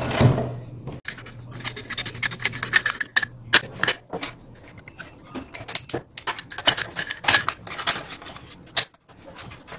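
Irregular hard plastic clicks, taps and knocks from the housing and handle of a Worx electric chainsaw being handled and set against a wooden tabletop.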